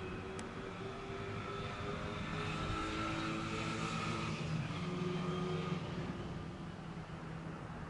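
A passing engine: a steady hum that builds about two seconds in, is loudest through the middle and fades again near the end.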